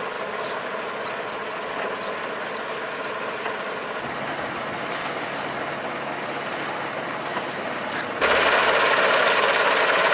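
Heavy diesel engine of machinery running steadily with a clattering rattle. It gets clearly louder about eight seconds in.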